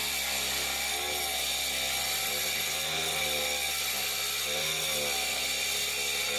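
Small power-tool motor running steadily, its pitch wavering slightly up and down.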